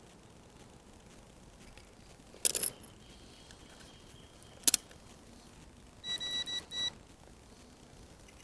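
A short metallic clatter about two and a half seconds in and a sharp click two seconds later, from tools being handled on the workbench, then a quick run of four or five high electronic beeps.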